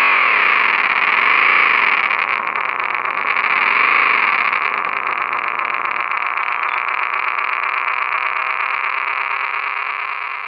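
Synthetic sound effect from an electric motorbike's sound system: a loud, hissing, noise-like tone that sweeps up and down twice, then holds steady and starts to fade near the end.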